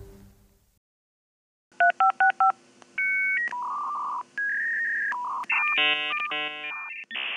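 Dial-up modem connecting: four quick touch-tone dialing beeps, then a run of steady tones that jump from pitch to pitch, ending in fast-switching stacked handshake tones over a faint line hiss.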